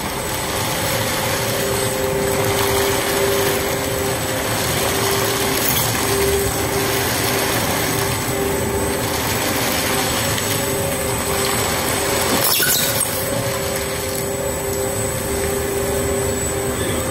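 Industrial plastic film shredder running, its toothed cutter rotors tearing up polyethylene film bags, with a steady mechanical whine over the grinding noise. A sharp knock about twelve and a half seconds in.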